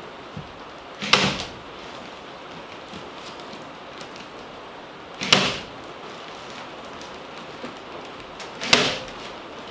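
Staple gun fastening kraft-faced fiberglass insulation to wooden roof rafters: three sharp snaps a few seconds apart, one per staple driven.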